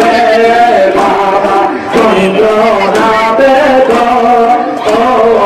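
Men chanting a Sufi zikr in a melodic, sung line, carrying on without a break.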